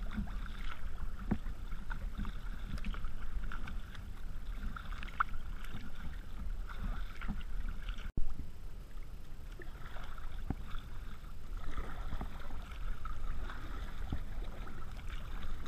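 Kayak paddle strokes dipping and splashing, with water lapping against the hull over a low steady rumble. About eight seconds in, the sound briefly drops out and is followed by a sharp knock.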